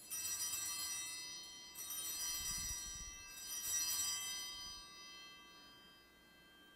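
Altar bells rung three times at the elevation of the chalice, marking the consecration. Each stroke is followed by bright, high ringing tones that linger and slowly fade away.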